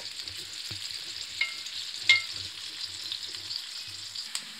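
Chopped onions sizzling in hot oil in a metal karahi as they are fried to light brown, stirred with a wooden spatula that scrapes and knocks against the pan. Two sharper knocks, about a second and a half and two seconds in, make the pan ring briefly.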